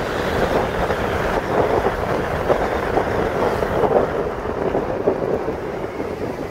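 Wind buffeting the microphone of a phone filmed from a moving vehicle, over road and traffic noise. The rush eases slightly after about four seconds.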